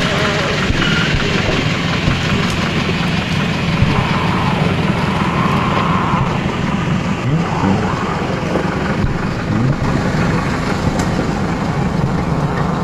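A vehicle's engine running steadily at idle.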